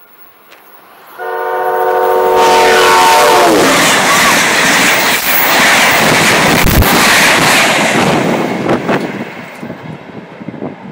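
Amtrak Northeast Regional train sounding its multi-note horn as it approaches, the chord dropping in pitch as the locomotive passes close by. The horn is followed by the loud rush of the stainless-steel Amfleet coaches going past at speed, which fades over the last couple of seconds.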